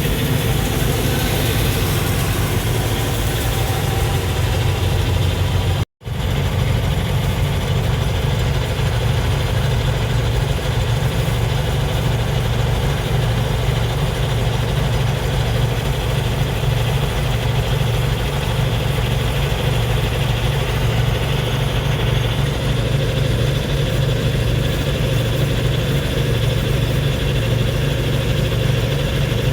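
Combine harvester engine running steadily at idle, with a momentary dropout about six seconds in.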